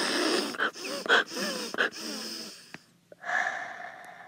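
A child's voice making wheezing, gasping noises. Three short gasps come in quick succession, then a longer breathy wheeze about three seconds in.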